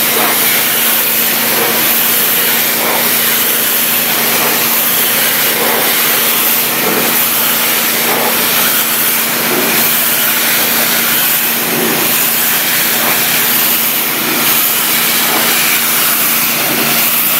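Hot-water pressure washer rated at 3000 psi running steadily: the machine's hum under the continuous hiss of its high-pressure spray.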